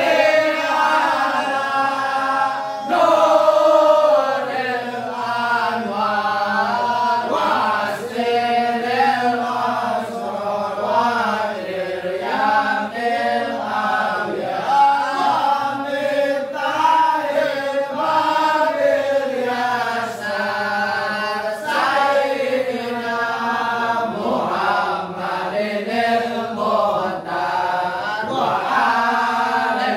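A group of men chanting sholawat, Arabic devotional praise of the Prophet, together in one melodic line, with no instruments heard.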